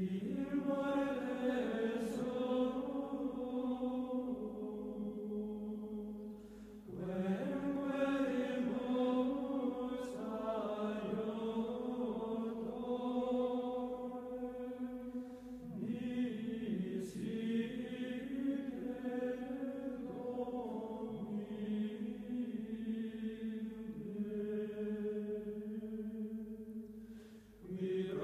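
Slow vocal chant of long, steadily held notes, sung in three long phrases with short breaks between them.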